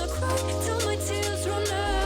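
Hip hop / R&B backing music with a deep sustained bassline that shifts pitch near the start and again near the end, under a steady beat.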